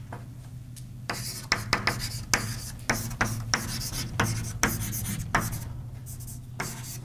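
Writing on a board: a run of short scratching and tapping strokes, some in quick clusters, from about a second in until near the end, over a steady low hum.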